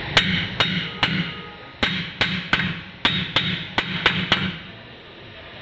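A hammer striking the pinion flange of a Mahindra Scorpio pickup's rear differential: about a dozen sharp metallic taps at an uneven pace, with a short pause after the first three.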